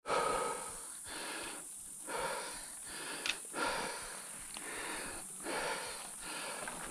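Heavy, rapid breathing close to the microphone: a mountain biker panting, out of breath, in strokes about a second apart.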